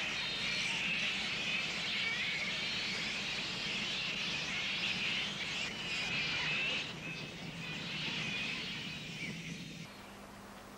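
A roosting colony of flying foxes shrieking, many high calls overlapping into a constant din: agitated alarm calls to warn off intruders passing below. The shrieking stops abruptly about ten seconds in.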